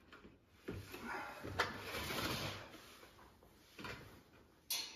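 Plastic pet carrier's wire door being opened and handled: knocking and rustling of plastic and wire, with a sharp click about one and a half seconds in and a run of sharp metal clicks near the end.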